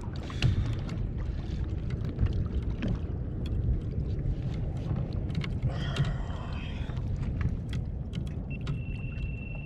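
Water sloshing and wind buffeting at a kayak, a steady low rumble with scattered small knocks and clicks. A short wavering high sound comes about six seconds in, and a steady high beep-like tone near the end.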